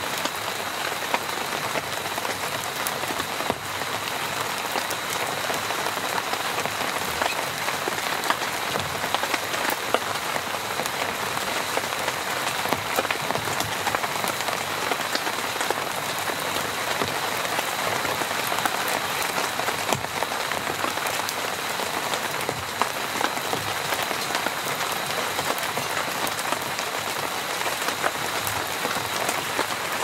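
Steady rain falling on a tent, thick with the ticks of single drops, with a faint steady high tone underneath.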